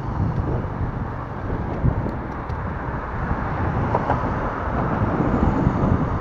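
Wind buffeting the microphone of a camera on a moving recumbent bicycle, mixed with the steady noise of city car traffic passing alongside.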